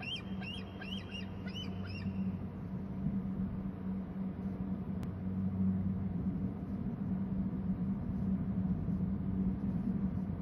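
Eaglet calling: a quick run of about six high, thin chirps in the first two seconds, then it falls silent. A steady low hum runs underneath, with a single faint click about five seconds in.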